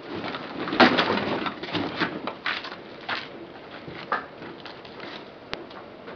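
A thin plastic bag crinkling and rustling as it is pulled out and handled, loudest about a second in, then fading to scattered light rustles and clicks.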